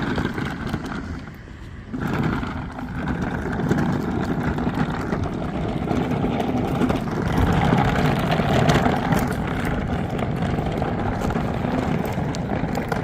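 Steady rumble of a car on the move, heard from inside the cabin, dipping briefly about a second in.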